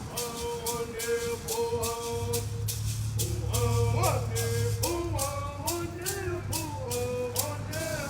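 Sung vocal line over a shaken rattle keeping a steady beat of about two to three strokes a second. A low hum joins about two seconds in.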